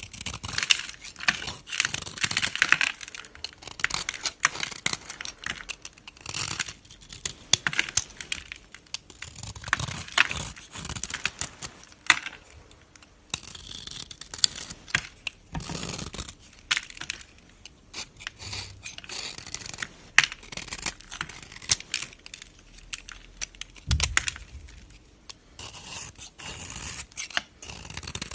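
Knife cutting through bar soap: repeated crisp, crackling scraping strokes as the blade slices the soap into cubes.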